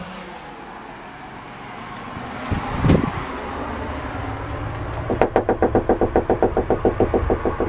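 A single heavy thump about three seconds in, then from about five seconds a fast, even run of knocks on a house door, roughly eight a second, as someone locked out bangs to be let in.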